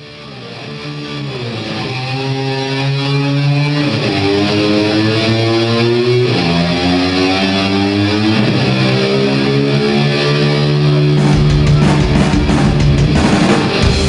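Electric guitar playing long held, sliding notes, fading in from silence and growing louder over the first few seconds, in the style of the slide-guitar intro that imitates a motor scooter revving. About eleven seconds in, the drums and the rest of the rock band come in.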